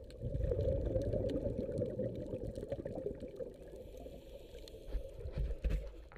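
Muffled underwater rumbling and bubbling picked up by a camera underwater, swelling for the first two seconds and again about five seconds in, with faint crackles.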